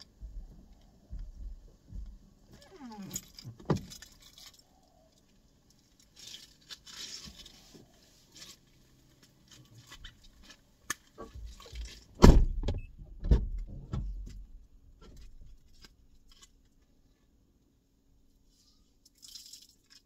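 Rustling and knocking at a car's open front door with keys jangling, then the door shut with a heavy thud about twelve seconds in, followed by a second lighter thud.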